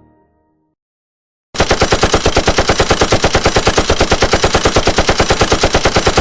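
Rapid automatic gunfire sound effect: an unbroken burst of shots, about eleven a second, starting about a second and a half in.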